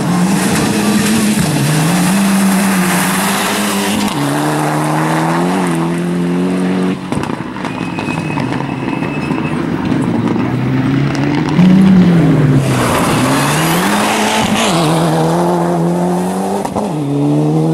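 Rally car engine revving hard, its pitch climbing and falling again and again with gear changes, over tyre noise and some tyre squeal. It is loudest about twelve seconds in.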